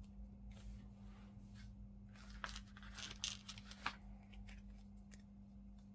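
A hobby knife scraping and trimming the edge of a 3D-printed plastic part: a run of short, light scratches and clicks, busiest in the middle, over a faint steady hum.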